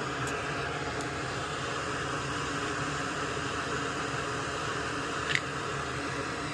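Steady fan-like hiss with a faint tick or two near the start and one short sharp click about five seconds in.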